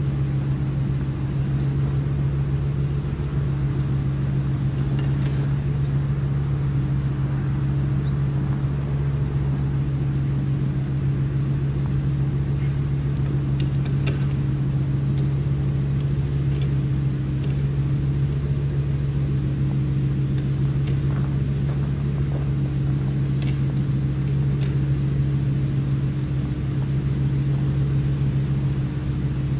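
A steady, unchanging low mechanical hum.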